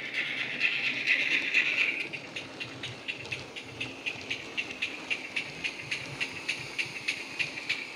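Steam locomotive sound file of a GWR 16xx pannier tank played by a DCC sound decoder through the model's small speaker: a strong steam hiss for about two seconds, then steady exhaust chuffs at about four a second as the locomotive runs.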